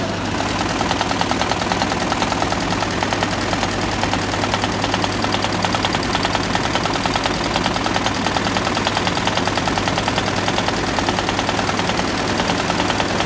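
Computerized embroidery machine stitching: a rapid, even clatter of needle strokes over a steady motor hum.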